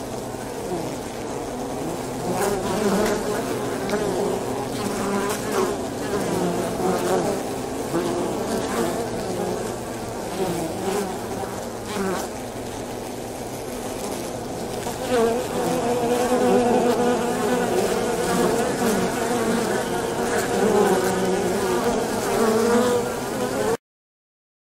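Angolita paper wasps (Polybia occidentalis) buzzing at their nest: many wingbeat tones overlapping and wavering in pitch. The buzz grows louder about halfway through and cuts off abruptly about a second before the end.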